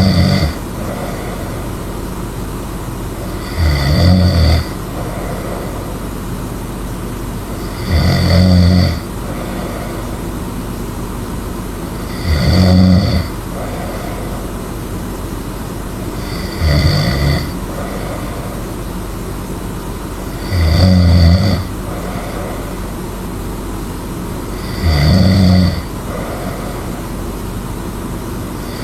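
A person snoring loudly in a steady rhythm, one snore about every four seconds, each lasting about a second, with a steady hiss in between.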